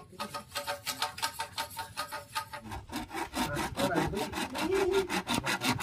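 Small hand saw cutting into a green bamboo pole: quick, even back-and-forth strokes, about four or five a second, rasping through the culm wall.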